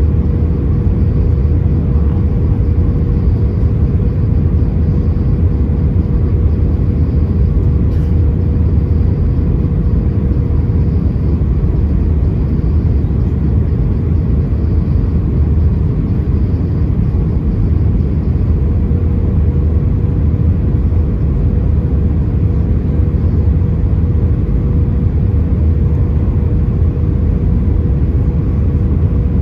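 Steady cabin noise inside an Airbus A320 with its jet engines running: a deep, even rumble with a steady mid-pitched hum over it.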